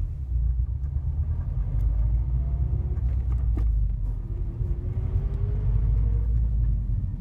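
Subaru STI's turbocharged flat-four engine running with a steady low rumble, with faint rising whines in the middle and one sharp click about three and a half seconds in.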